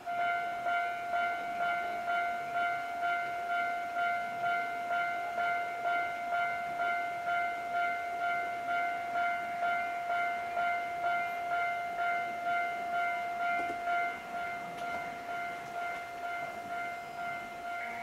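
Japanese level-crossing alarm ringing, a repeated two-per-second bell tone that warns of an approaching train. It starts abruptly and runs on steadily, a little quieter from about fourteen seconds in.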